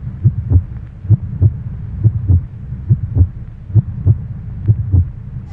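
Heartbeat sound effect: low double thumps, lub-dub, repeating a little less than once a second, about six beats in all.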